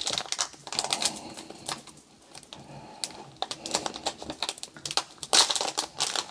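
Foil trading-card pack wrapper being handled: a run of light clicks and crinkles, quieter about two to three and a half seconds in, then louder crinkling near the end as the pack is worked open.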